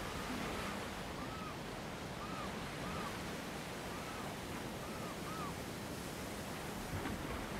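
Steady wash of sea surf with wind on the microphone, crossed by a run of about eight short, arched chirps in the first five and a half seconds and a small knock about seven seconds in.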